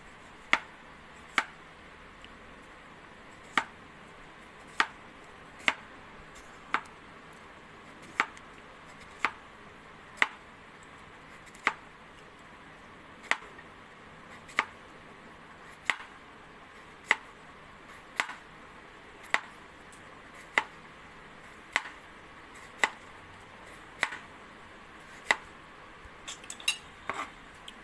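Knife slicing a cucumber into thin rounds, the blade hitting the cutting board with a sharp tap about once a second, then a quick flurry of lighter taps near the end.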